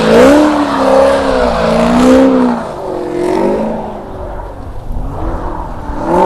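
A car engine revving hard, its pitch rising and falling in repeated waves.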